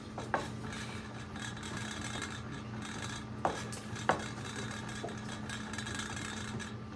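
Kitchen utensils clinking against dishes a few times: one sharp click near the start and two close together about halfway through, over a steady low hum.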